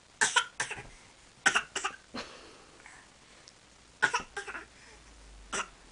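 Short coughs in quick clusters of two or three, four times over, with quiet between.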